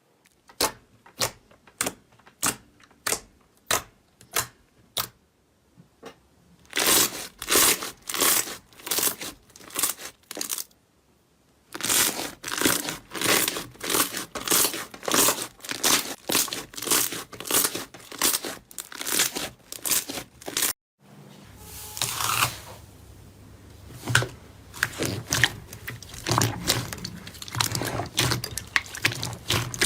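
Hands squeezing and poking slime, making sharp sticky pops and crackling clicks: a slow series of separate pops about two a second at first, then denser crackling runs in several short clips.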